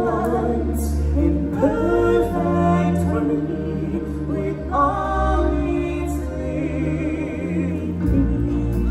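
Live stage-show music: sung notes, some held long and wavering, over a recorded orchestral backing with a steady low bass.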